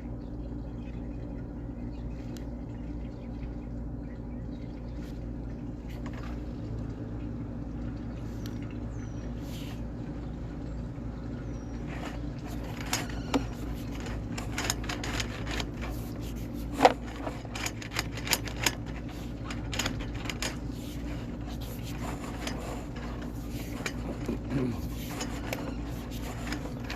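Sewer inspection camera's push cable and reel being worked over a steady low hum, with irregular clicks and rattles starting about halfway in and one sharp knock shortly after.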